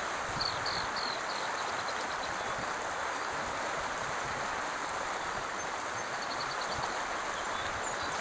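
Creek water rushing over a shallow, rocky riffle: a steady, even rush of running water.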